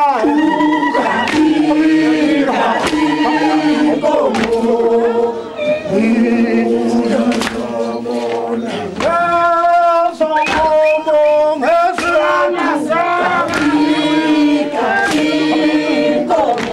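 A group of people singing a traditional chant-like song together, loud and sustained, with sharp cracks at irregular moments.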